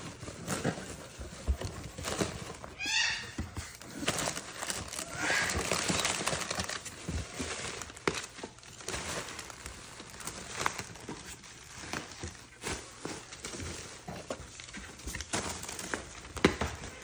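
Cardboard box and plastic wrapping rustling and crinkling as a capuchin monkey rummages in an opened shipping box and pulls at a plastic-wrapped toy. A few short, high, rising squeaky monkey calls come in about three and five seconds in.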